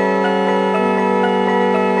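Background music: a melody of short, evenly spaced notes, about four a second, over long held low notes.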